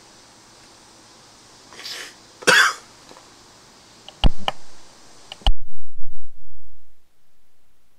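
A person coughs: a weaker burst and then a louder one, about two and two and a half seconds in. A few sharp, heavy knocks follow, and after the last one, about five and a half seconds in, the background hiss cuts off abruptly.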